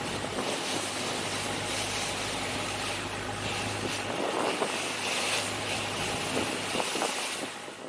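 A longtail boat's engine runs steadily under way, mixed with a rush of wind and splashing water from the wake. The low engine hum drops away about halfway through, and the sound fades out at the very end.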